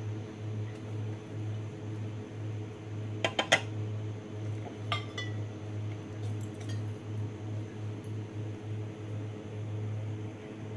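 Light clinks of glassware and kitchenware over a steady low hum: three quick clinks about three seconds in, a single ringing clink near five seconds, and a few fainter taps a little later.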